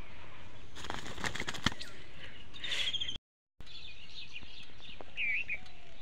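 A shot dove flapping its wings in the hunter's hands, a flurry of quick wingbeats with a sharp click, then the sound cuts out briefly. Afterwards small birds chirp, with one clear call about five seconds in.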